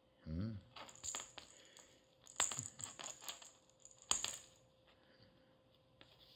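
Scattered sharp clicks and light rustling as a calico kitten plays with a feather toy on tatami mats, the loudest clicks coming in small clusters about one, two and a half and four seconds in.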